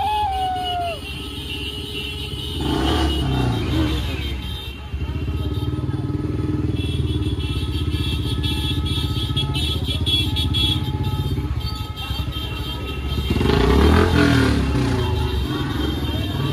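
Several scooters and motorbikes riding together at low speed, their small engines running steadily, with voices breaking in about three seconds in and again near the end.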